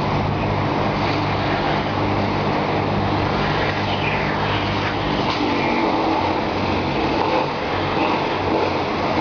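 An engine running steadily at a constant speed, with street traffic noise around it.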